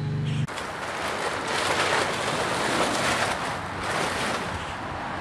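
Plastic tarp rustling and crinkling as it is pulled off and handled.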